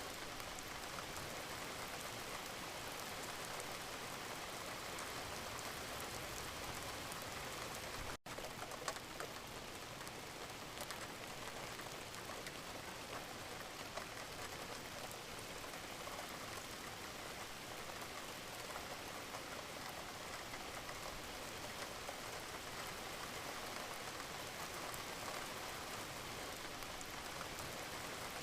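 Steady rain falling in an even, dense patter, with a momentary dropout and a click about eight seconds in, where the recording is spliced.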